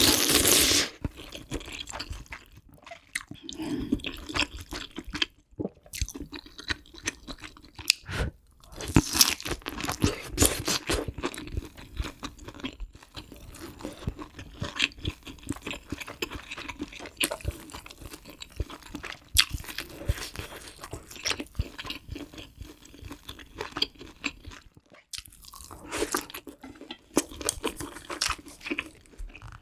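Close-miked mukbang eating sounds: chewing and slurping of kimchi stew with ramyeon noodles, pork and tofu. Irregular short clicks run throughout, and the loudest burst comes right at the start.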